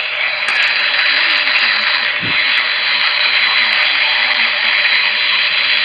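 Loud steady hissing noise, like static, with a faint voice underneath it; it starts abruptly at the beginning.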